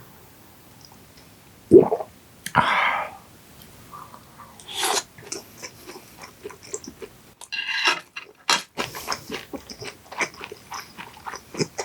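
Close-up mouth sounds of eating raw yellowtail sashimi after a shot of soju. A short swallow-like sound and a breathy exhale come early on. Then comes a long run of irregular wet chewing clicks and crunches.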